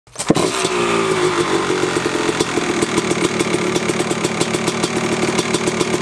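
Freshly rebuilt Yamaha YZ250 two-stroke single-cylinder engine kick-started, catching at once, its revs falling away over about a second and then settling into a steady idle, running through an FMF Gnarly expansion chamber and Turbinecore 2 silencer.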